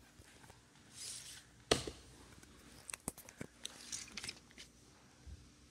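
Cardboard floor-puzzle pieces being shuffled and set down on a wooden floor: soft scraping and rustling with a few light clacks.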